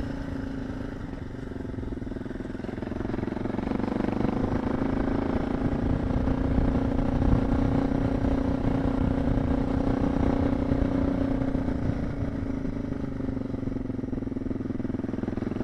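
Suzuki DR650's single-cylinder four-stroke engine pulling steadily in gear on an uphill dirt climb, growing louder over the first few seconds as the throttle opens and then holding an even note.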